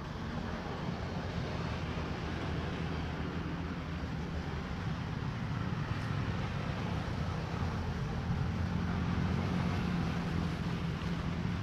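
A steady low engine-like hum over a constant hiss, growing slightly louder after the middle.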